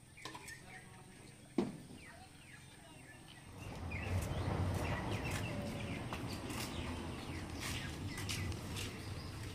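Faint bird chirps, then a little over a third of the way in a louder, steady low rumble comes in, with scattered light clicks over it.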